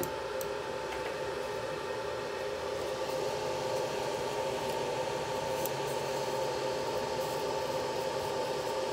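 Fokoos Odin-5 F3 3D printer humming steadily while switched on and at rest, its cooling fans running, with several steady tones over a light hiss.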